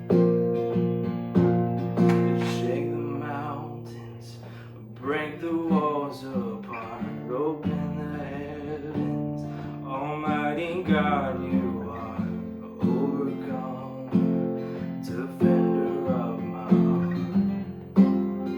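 Music led by acoustic guitar: strummed chords ring out one after another, with a wavering melody line over them.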